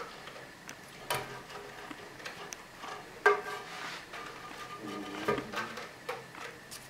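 A cat playing on a wooden cat tree: scattered knocks and light clatter as it bats at a dangling toy. The loudest is a sharp knock with a short ring about three seconds in.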